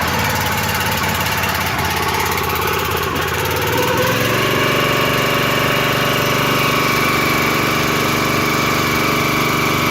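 Loncin single-cylinder engine on a 22-ton log splitter running just after starting on the first pull, on choke for its first cold start; it settles into a steadier, slightly louder run about four seconds in.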